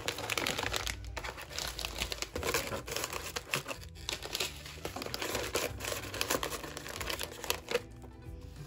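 Clear plastic zip-top bags and packaging crinkling and rustling against tissue paper as small packaged items are pressed and rearranged inside a small box, dying down near the end.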